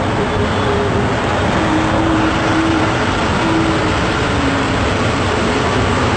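Engine and road noise inside the driver's cab of a bus at highway speed: a steady, loud rumble and rush, with a faint hum that comes and goes.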